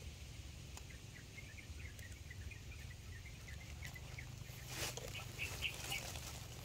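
A small bird chirping outdoors: a quick series of short high chirps, a few a second, then a few slightly higher chirps near the end. A brief rustle of dry leaves just before five seconds in, over a steady low rumble.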